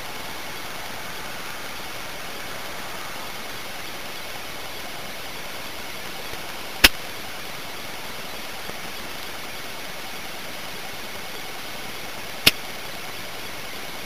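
Steady hiss from a miniature video recorder's built-in microphone, with a faint steady high whine, broken twice by a sharp click: once about halfway through and again near the end.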